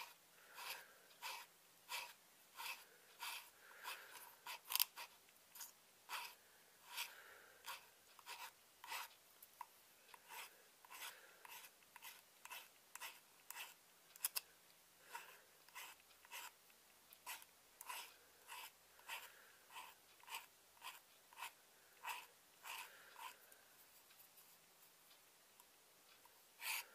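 A small hand file rasping in short, even strokes, about two a second, across the edge of a knife handle scale and its glued-on blue liner. The strokes are faint.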